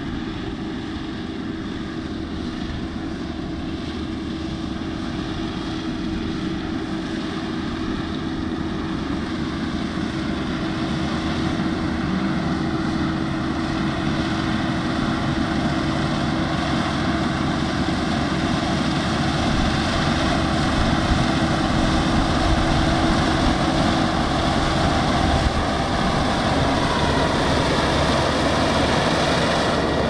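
Kubota DR6130SX six-row combine harvester cutting rice: its diesel engine and threshing machinery run as a steady drone with a steady hum, growing gradually louder as it approaches.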